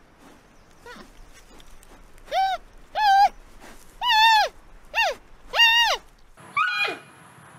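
Giant panda bleating: five loud, high calls in quick succession, each rising and then falling in pitch, followed by one more call near the end.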